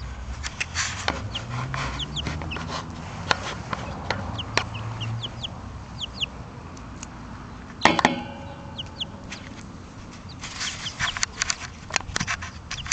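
Three-week-old chicks peeping: many short, high cheeps scattered throughout, with brief clicks among them. A louder, fuller sound comes about eight seconds in.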